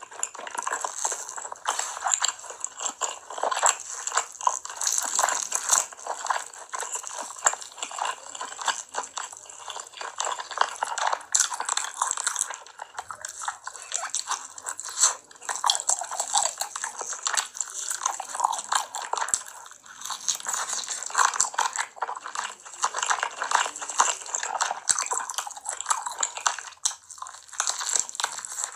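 Close-miked eating of roast chicken: a dense, continuous run of crisp clicks and wet smacks as meat is bitten off and chewed.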